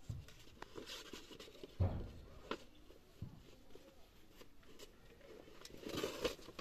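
Scattered soft thumps and rustles as a baby shifts about on a floor mat, with book pages being turned; the loudest is a dull thump about two seconds in.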